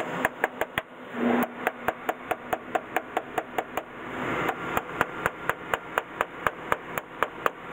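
Magnetic contactor being tapped with a tool in a quick even series of sharp knocks, about four a second. It is being struck to free an armature that sticks and will not pull in after the machine sat unused for six months.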